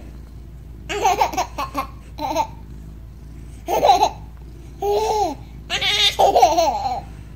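Infant laughing in several short bouts with pauses between.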